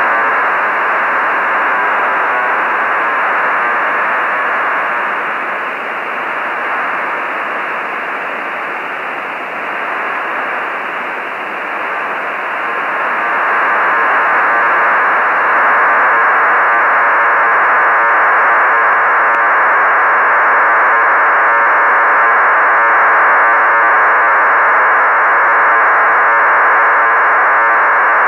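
Radio receiver audio from an ICOM 706 MkIIG tuned to the HuskySat-1 satellite downlink: steady hiss with the satellite's digital telemetry modulation in it. It dips for a few seconds, then gets louder about halfway through.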